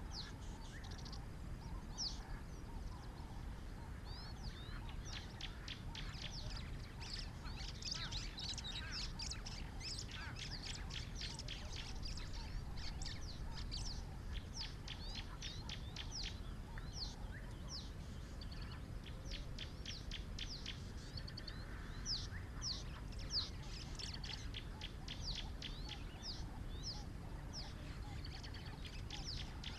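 Wild birds calling: a busy stream of short, sharp chirps and downward-sliding whistled notes in quick runs, over a steady low background rumble.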